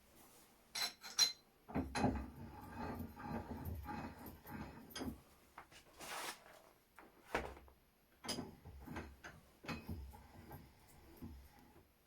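Metal gun parts and tools being handled on a workbench: scattered clicks and knocks with stretches of rubbing and scraping, and a short hiss about six seconds in.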